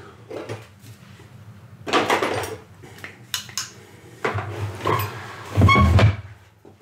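Hard objects on a workbench clattering and clinking as tools are handled: several separate knocks and rustles, the loudest near the end.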